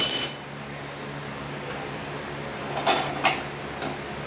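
Metal hand tools set down with a short ringing clink, then two dull metallic knocks about three seconds in from the engine stand holding a Ford 302 short block as it is taken hold of to turn the block over.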